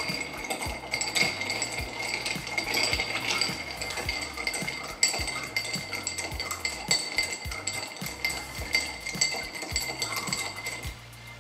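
Bar spoon stirring ice in a cut-crystal mixing glass: continuous quick clinks of ice and spoon against the glass, over a steady glassy ring. The stirring stops just before the end.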